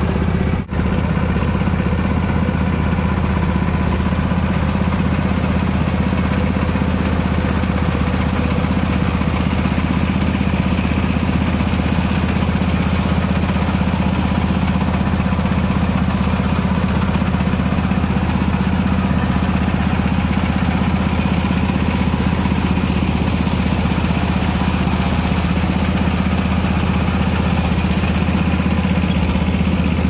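Mini combine harvester's engine running steadily under load as it cuts paddy rice, with the clatter of its cutting and threshing gear. The sound breaks off briefly under a second in.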